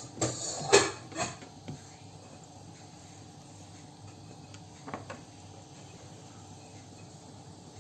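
A few short knocks and scrapes of kitchen utensils against a pan in the first couple of seconds, then a quiet steady background with one faint knock about five seconds in.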